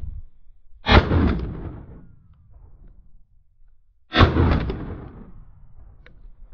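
Double-barrelled shotgun fired twice, about three seconds apart, each shot followed by a fading echo.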